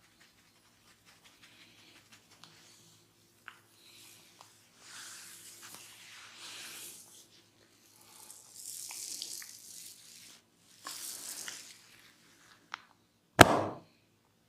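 A barber's hands working over a client's head and hair: three stretches of scratchy, crackling rustling, then one loud, sharp smack near the end.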